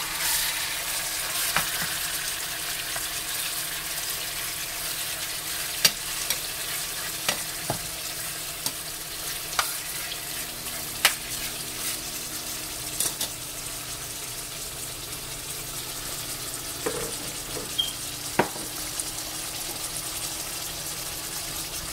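Cubed pork sizzling steadily as it browns in a hot pan, stirred with a spoon that clicks against the pan every second or two.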